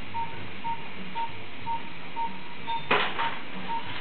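Hospital monitor beeping steadily at about two beeps a second, over a low hum, with a newborn baby's short cry about three seconds in.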